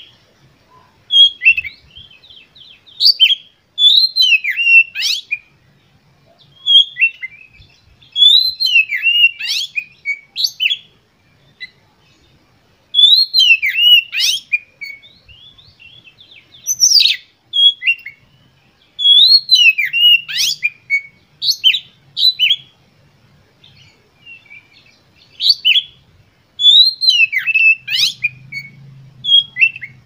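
Oriental magpie-robin (kacer) in full, agitated song: loud phrases of clear whistles and sharp chirps, each a second or two long, repeated about a dozen times with short pauses.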